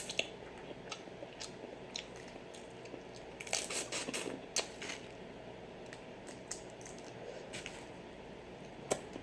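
A person eating boiled shrimp and crawfish close to the microphone: chewing and smacking with scattered small clicks and crackles, busiest about four seconds in, and one sharp click near the end.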